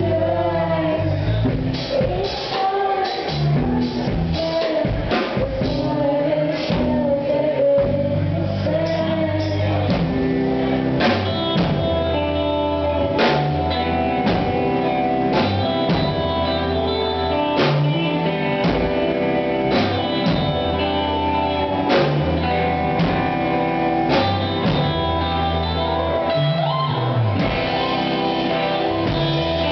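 Rock band playing live: guitars and drum kit with a voice singing over roughly the first third, after which guitars and drums carry on without the vocal.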